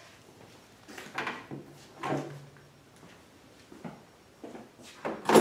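A few short knocks and rustles of objects being handled, spaced about a second apart, the loudest one near the end.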